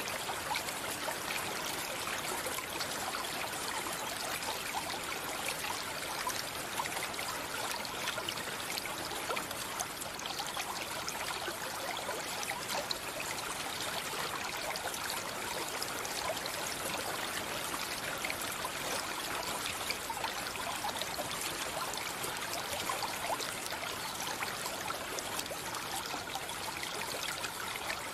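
Stream water trickling and babbling steadily, a dense even rush without pauses.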